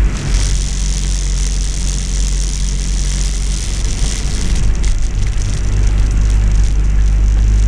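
Land Rover 110's engine running steadily under way, heard from inside the cab, with a high hiss of tyres on the wet road and rain on the body.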